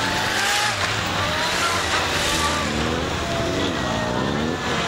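Several police motorcycles running as they ride past in formation, their engines rising and falling in pitch as they pass. A thin tone slowly falls in pitch underneath.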